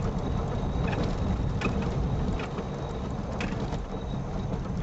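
Steady low rumble of a car driving on a rough dirt road, heard from inside the cabin, with a few sharp knocks and rattles from bumps.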